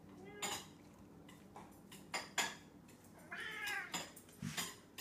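Domestic cat meowing for its breakfast: one clear, arching meow a little past the middle, with a faint short one near the start. Several sharp clicks and taps fall between them.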